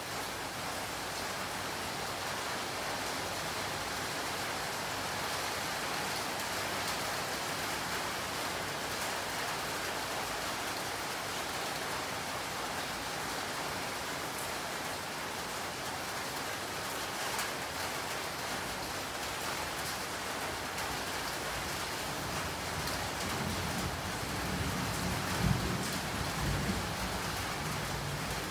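Steady rain falling, an even hiss throughout. A low rumble joins near the end.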